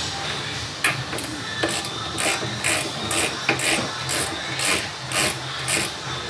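Hand ratchet with a 17 mm socket working a shock-absorber mounting bolt loose, with short rasping ratchet strokes about twice a second.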